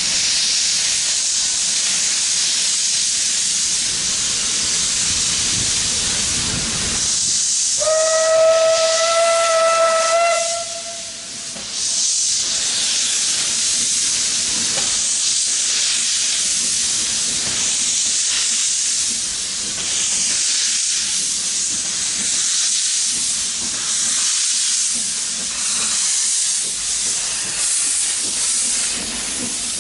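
Isle of Man Railway Beyer Peacock steam tank locomotive running in with its cylinder drain cocks open, hissing steam steadily. About eight seconds in it sounds its whistle once, a single blast of about two and a half seconds.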